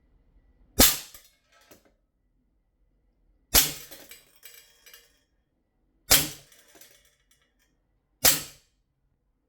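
Sig Sauer 1911-style CO2 air pistol fired four times at a target, one sharp pop every two to three seconds, each dying away quickly.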